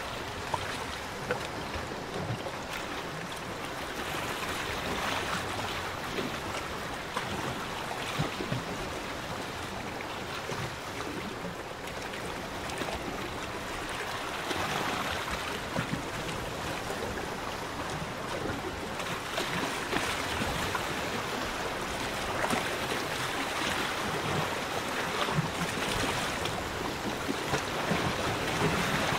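Small lagoon waves lapping and sloshing, swelling every few seconds, with an occasional small splash.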